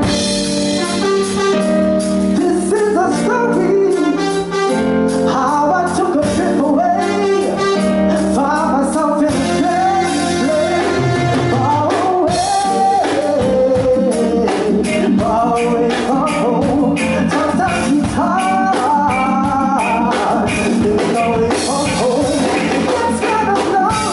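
Live reggae band with drum kit and electric guitars playing, while a male singer sings lead into a microphone through the PA.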